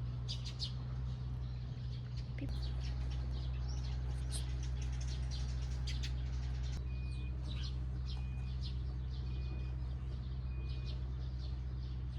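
Birds chirping over a steady low hum, with a short high note repeating about every second and a half in the second half.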